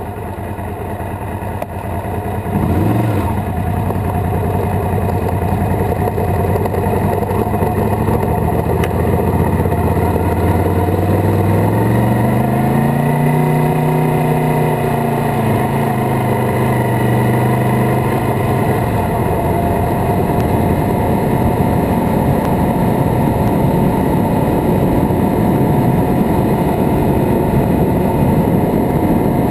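Honda VFR750F's V4 engine under way on the road, its pitch climbing as it accelerates from about ten seconds in and dropping back a few seconds later, over a steady wind rush that builds with speed.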